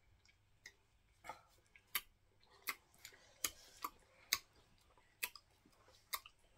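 Faint, irregular wet mouth clicks and smacks from chewing fufu, about nine sharp clicks spread unevenly over a low hiss.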